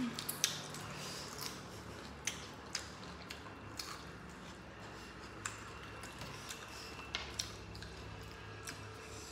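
Close-up eating sounds: wet chewing and lip smacks as people eat rice and meat with their fingers, with many short sharp clicks scattered throughout, over a faint steady low hum.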